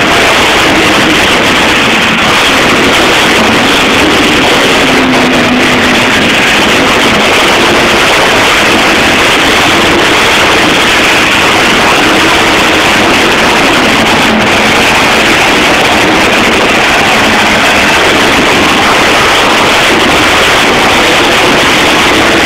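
Monster truck's supercharged big-block V8 running hard, its revs rising and falling as it drives. The sound is loud and continuous and pushes the recording close to full level.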